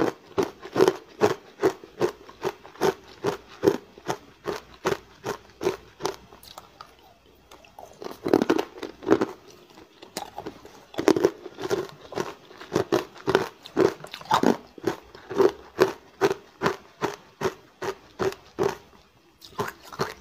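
Hard ice coated in matcha powder being chewed close to the microphone: a steady run of sharp crunches, about two a second, with a short lull about a third of the way in.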